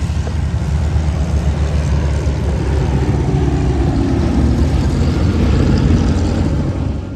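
Piston engines of a B-17 Flying Fortress bomber flying past, a loud, steady, low drone.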